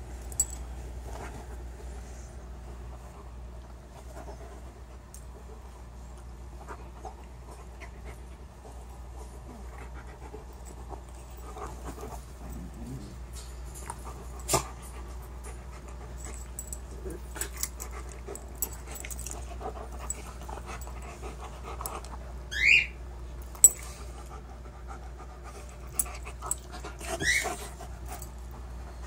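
Two dogs play-fighting: panting and scuffling, with scattered short knocks and two brief, high, rising squeals near the end.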